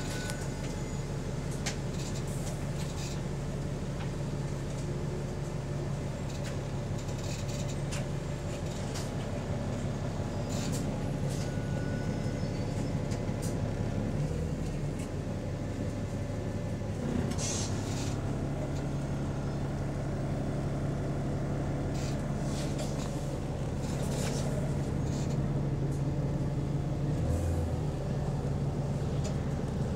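Double-decker bus engine heard from inside on the upper deck, running with a steady low hum, its note shifting about halfway through and again near the end as the bus changes speed. Interior panels and fittings rattle and click throughout.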